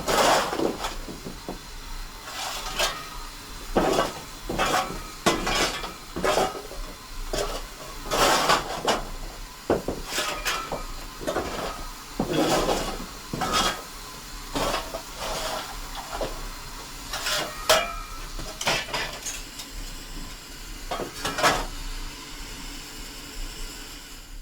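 Railway carriages' buffers and couplings clanking and banging as stock is shunted by a GWR pannier tank locomotive: a string of irregular sharp metallic clanks, each with a brief ring.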